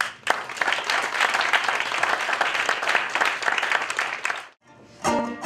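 Audience applauding, dense clapping that cuts off abruptly about four and a half seconds in. Near the end, instrumental music begins.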